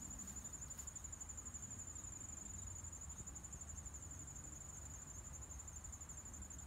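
Insects trilling: one high, steady, rapidly pulsing trill that does not change, over a faint low rumble.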